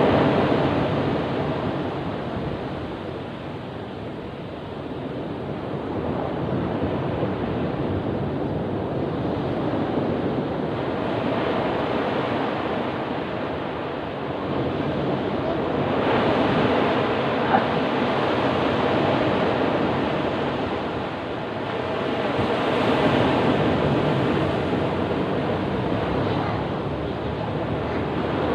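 Ocean waves breaking on a beach, a steady rushing surf that swells and ebbs every several seconds as each wave rolls in and recedes.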